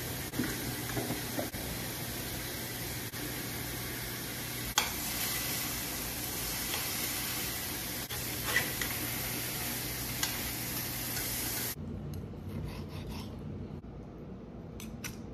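Pork pieces sizzling in a cast-iron skillet, with a few sharp clicks of tongs against the pan as they are turned. About twelve seconds in the sizzle cuts off, giving way to a knife cutting fried pork on a wooden board with a few light knocks.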